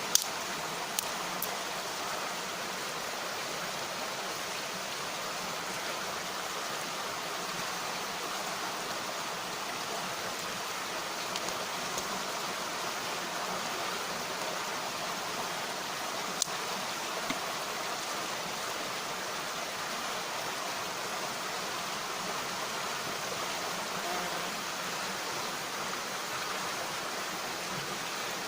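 A mountain stream rushing steadily, with a few sharp pops: a couple right at the start and one or two a little past halfway.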